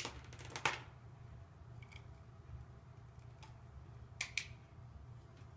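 Light clicks and taps of plastic Lego Technic pieces being handled and fitted together: a cluster of clicks in the first second, a faint one about two seconds in, and two quick clicks a little after four seconds.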